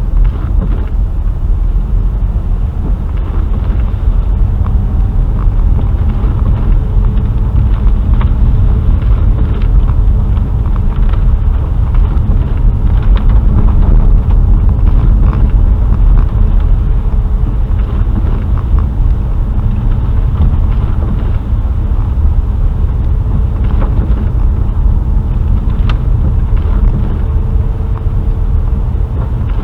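Car driving at a steady speed, heard from inside the cabin: a continuous low road and engine rumble with a few light ticks and knocks scattered through it.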